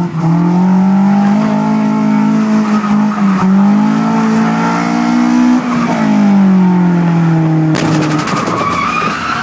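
Toyota AE86's swapped-in Beams 3S-GE inline-four, heard from inside the cabin during a drift, revving up and down so that its pitch rises and falls several times. Near the end a harsh, rattling burst cuts in over the engine for about a second.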